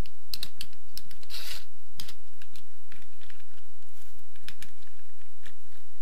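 Light, scattered plastic clicks and rattles of a Beyblade Burst top and its launcher being handled and fitted together before a launch, with a brief rustling scrape about a second and a half in.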